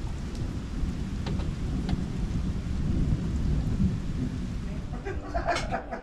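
Rain falling with a steady low rumble of thunder, a few faint drop ticks through it.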